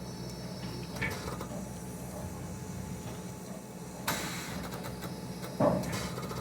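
Steam locomotive running with a steady low hum, broken by sharp metallic clanks and knocks, the loudest a little before the end.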